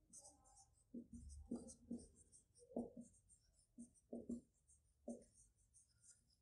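Marker pen writing on a whiteboard: a faint run of short scratching strokes as a line of words is written.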